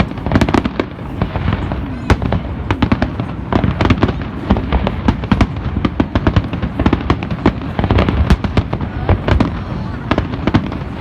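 Festive fireworks display: a rapid, unbroken string of bangs and crackles from shells bursting overhead.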